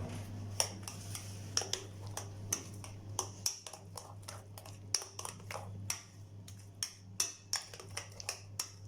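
A spoon stirring a thick mashed-plantain and flour batter in a bowl: irregular light clicks and taps of the spoon against the bowl, a few each second, over a steady low hum.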